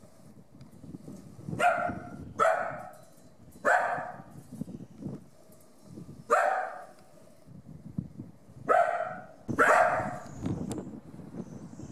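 A dog barking: six single barks at uneven intervals.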